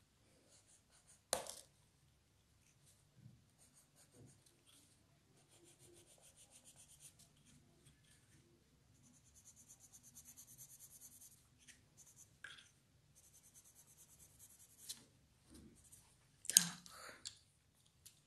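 Coloured pencil shading on paper: runs of quick back-and-forth scratchy strokes that stop and start. There are two sharp knocks, one about a second in and a louder one near the end.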